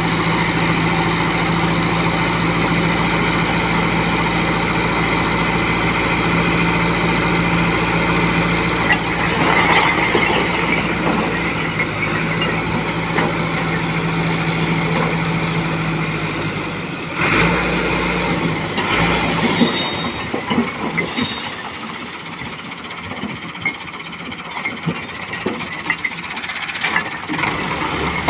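Massey Ferguson 385 tractor's four-cylinder diesel engine running steadily under load as its hydraulics tip the brick-laden trolley. About two-thirds of the way through its steady note changes and settles lower and quieter, with an irregular run of sharp knocks and clatters over it.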